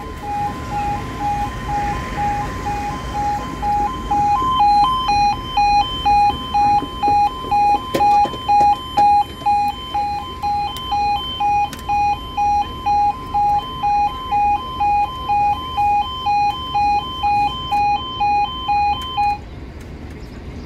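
Level crossing audible warning alarm sounding: two alternating tones pulsing about twice a second, stopping near the end.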